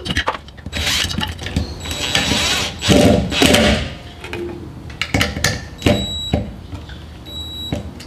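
Drill driving screws in a few short runs, with knocks and clatter of handling in between.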